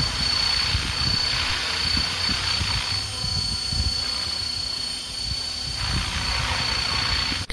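Radio-controlled electric helicopter hovering: a steady rush of rotor noise with a thin high-pitched whine running through it and uneven low rumbles. The rush thins out for a few seconds in the middle as the craft turns.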